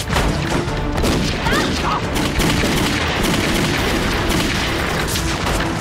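Rifle and pistol gunfire in a film battle, many shots overlapping in a continuous fusillade.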